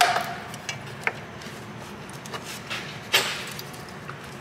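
A few sharp clicks and knocks from a plastic protective cover and its push clips as they are handled and pressed into place under the car, the loudest about three seconds in.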